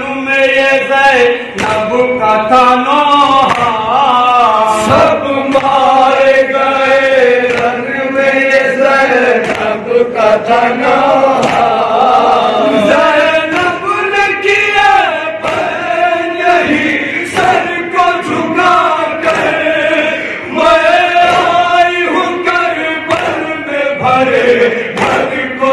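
A group of men's voices chanting a noha, a Shia mourning lament in Urdu, through a microphone, with a lead voice and the group joining. Sharp slaps recur slightly faster than once a second, fitting the rhythmic chest-beating (matam) that goes with it.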